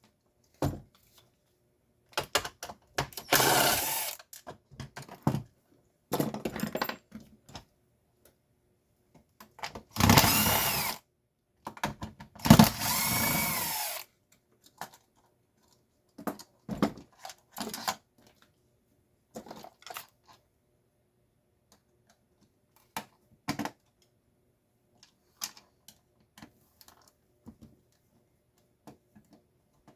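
Power drill run in three short bursts, its motor pitch rising and falling, while unscrewing the gearbox of an old Stanley garage door opener, with scattered clicks and knocks of parts and tools between the runs.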